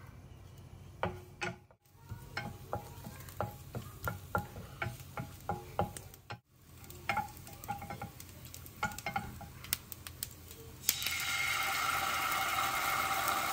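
A wooden spoon stirring in a frying pan of hot oil, giving a run of light clicks and taps. About eleven seconds in, dark sauce poured from a bottle hits the hot pan and sets off a loud, steady sizzle.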